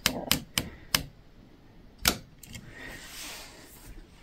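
Several sharp, irregular clicks from an Ashton Drake Chloe interactive baby doll as it is handled, most of them in the first two seconds.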